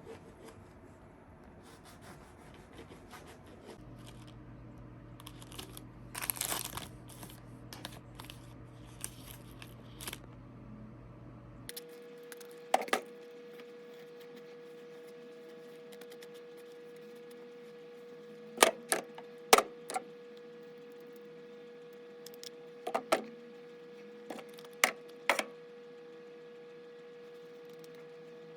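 Scattered sharp clicks and taps with a few short rustling clatters, like small objects or packaging being handled, over a low steady background hum.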